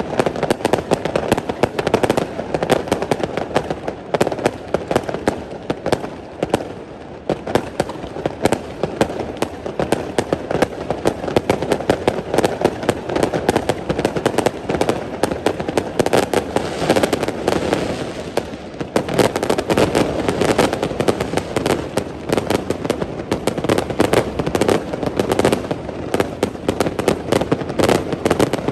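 Fireworks display: a dense, continuous barrage of crackling bursts and booming shell explosions, with a brief lull about six seconds in.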